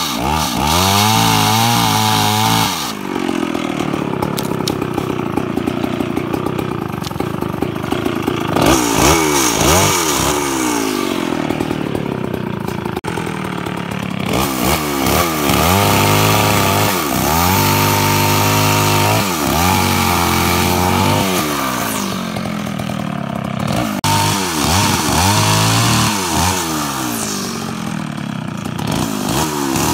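Jonsereds 1020 chainsaw's two-stroke engine running and cutting wood, revving up and dropping back again and again, with stretches at a lower, steadier pitch under load.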